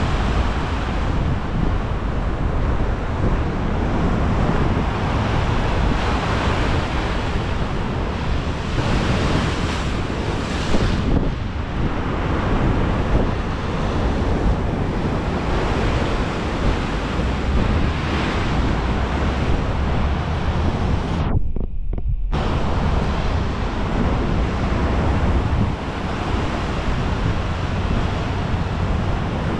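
Large waves surging and breaking on the Lake Michigan shore after a storm, under steady wind rumbling on a bare action-camera microphone.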